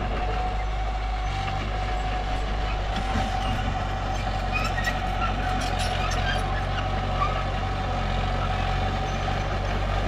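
Mini bulldozer engine running steadily, with a steady whine above its low hum and scattered faint high squeaks.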